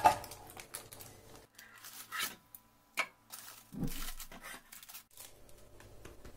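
Parchment baking paper rustling and crinkling in short, scattered bursts as it is handled around a cake in a frying pan, with a sharp click about three seconds in.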